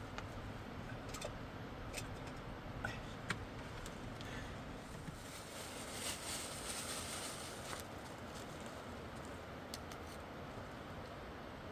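Scattered light clicks and taps over a steady rush of flowing river water, with a brief hissing rustle about six seconds in.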